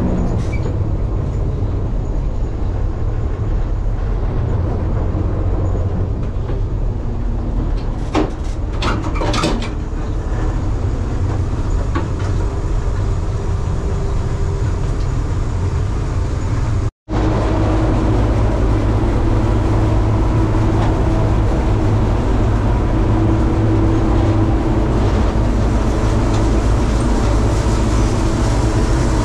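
Heavy diesel farm machinery running steadily. An abrupt cut about two-thirds of the way through leads to a steadier drone with a constant hum in it.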